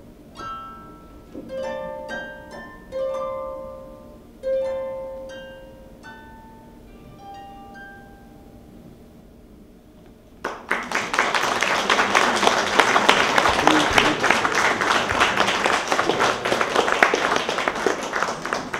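Concert harp playing the closing notes of a piece, single plucked notes ringing and dying away. About halfway through, audience applause breaks out, louder than the harp, and keeps going.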